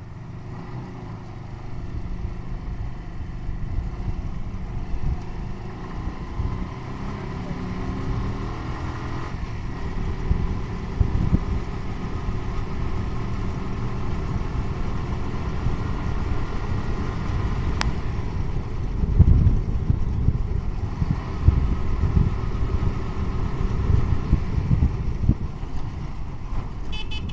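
Motorcycle engine running as the bike is ridden along, its note climbing a few seconds in as it picks up speed, with wind and road rumble over it.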